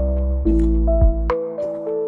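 Background music: soft, gentle melody of held notes over a sustained low bass, with light percussive ticks.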